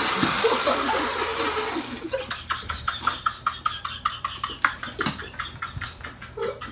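A mouthful of water spat out in a spray as someone breaks into laughter, then people laughing hard in quick rhythmic bursts from about two seconds in.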